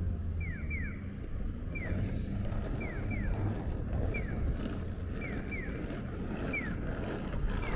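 Audible pedestrian crossing signal chirping in the Japanese 'piyo' / 'piyo-piyo' pattern: a single falling chirp alternates with a pair of chirps, one call about every second. The signal marks the walk phase of the light. A steady low street rumble of traffic and wind runs underneath.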